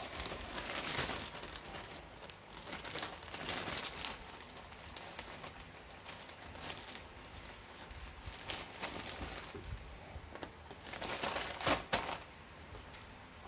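Clear plastic bag of jigsaw puzzle pieces crinkling as it is handled and folded over, with small scattered clicks, louder for a moment near the end.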